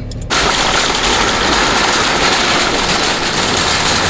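Wire shopping cart's wheels rolling over a concrete sidewalk, a loud, steady rattle that starts abruptly just after the beginning.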